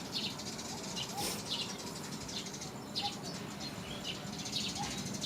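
Repeated short, high-pitched animal chirps, one every half second to a second, over a steady outdoor background hiss.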